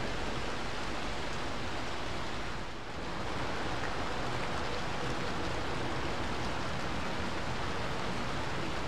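A steady rushing noise with no distinct tones, briefly dipping about three seconds in.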